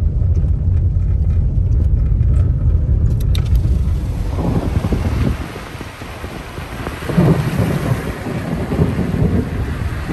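Thunder rolling after a nearby lightning strike, heard from a car in heavy rain. The first few seconds are a steady low rumble. About three and a half seconds in, a hiss of rain rises, and the thunder comes in uneven rolling swells, loudest around seven seconds in.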